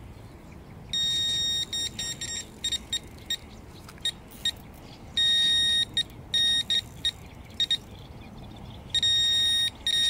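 Electronic carp-fishing bite alarm bleeping as the line is tightened on the set rod: a long tone about a second in, another near the middle and another near the end, with runs of short bleeps between them.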